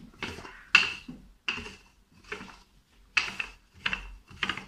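Wooden rolling pin rolled back and forth over brioche dough on a floured surface: a quick series of rubbing, clicking strokes, about two a second.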